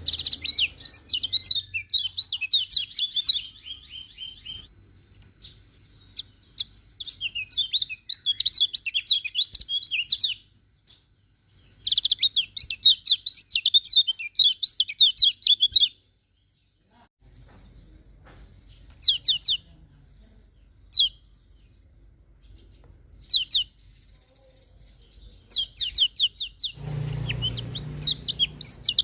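Kecial kuning songbird singing: fast, high twittering phrases that come in bursts of a few seconds, broken by pauses with a few short single chirps, then a new burst of song near the end.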